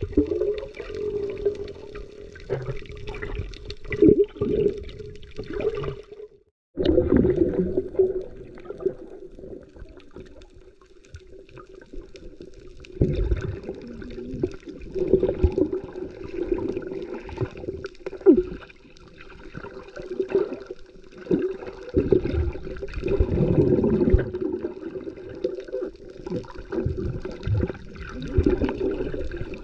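Water sloshing and gurgling in irregular surges over a low steady hum. The sound cuts out briefly about six seconds in.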